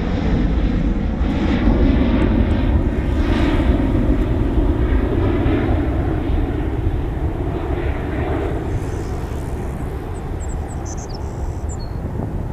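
Boeing 737-900ER jet engines (CFM56-7B turbofans) at takeoff power, a loud steady rumble and roar. It slowly fades and loses its high hiss as the airliner draws away.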